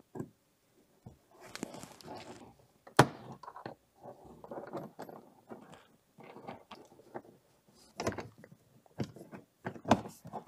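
Plastic handling noise as a cable tie and screw are worked into a hole in a car's plastic trunk trim panel: irregular rustling and small clicks, with one sharp click about three seconds in.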